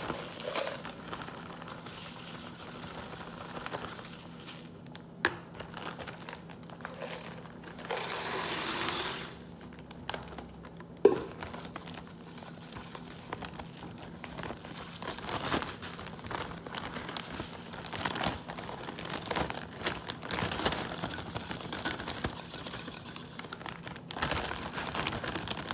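Plastic zipper storage bag crinkling and rustling as it is handled while being filled with ice and salt, with scattered small clicks and a sharp knock about eleven seconds in.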